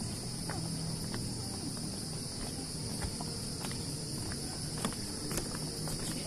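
A steady, high-pitched chorus of insects buzzing without a break, with a few faint clicks scattered through it.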